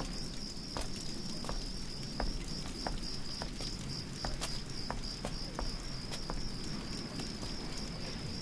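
Crickets chirping in a steady, fast-pulsing high trill, over a few soft, irregular clicks.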